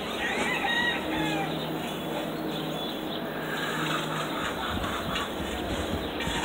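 Backyard chickens calling, with a call that rises and falls in pitch, like a rooster crow, near the start, over a steady low hum.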